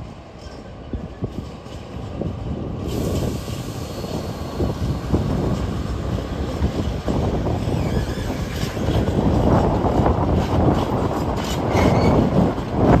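ÖBB class 2016 Hercules diesel-electric locomotive passing close by, hauling a train of tank wagons. Its rumble grows steadily louder. From about two-thirds of the way in, the wagon wheels clatter over the rail joints.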